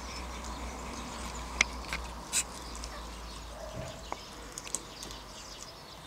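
Monk parakeets giving a scattering of short, harsh squawks and chirps, the loudest a little before halfway and several more in quick succession in the second half, over a steady low rumble.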